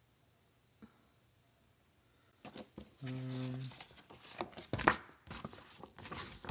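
Paper and plastic packaging rustling and crinkling as it is handled, starting about two seconds in after a near-silent opening. A short low hum breaks in around the middle.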